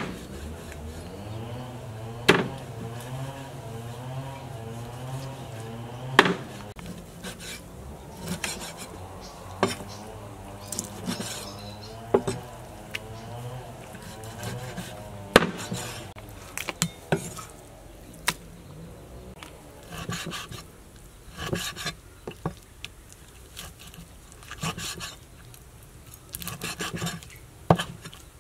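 Cleaver chopping raw pig leg on a wooden chopping board: sharp separate knocks a few seconds apart, coming faster in quick clusters in the second half. A low wavering hum sits underneath for about the first half.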